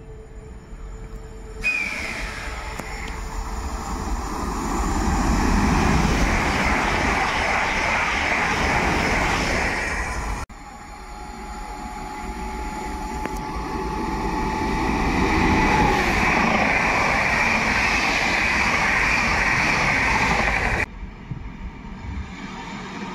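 Electric multiple-unit trains (an ED161, then an ED160) running through the station, each a loud, building rush of wheels on rail that cuts off suddenly at an edit. A quieter approach of an EN57 unit follows near the end.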